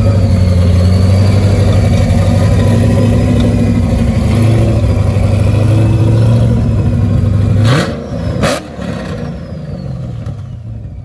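Cadillac CTS sedan with an aftermarket exhaust, running with a loud, steady low exhaust note as it rolls slowly. About eight seconds in it is revved hard twice in quick succession as it pulls away, and the sound then drops off as the car drives off.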